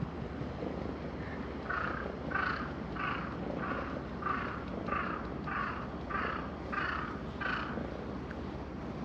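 A bird calling about ten times in an even series, a little under two calls a second, from about two seconds in until near the end. Beneath it, the steady low purr of a ginger tabby cat being stroked.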